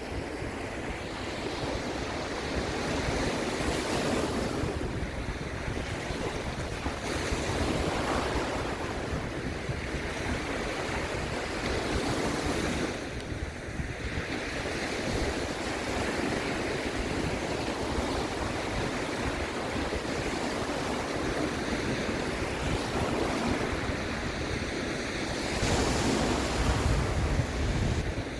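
Sea waves surging and washing in, rising and falling every few seconds, with wind rumbling on the microphone, strongest near the end.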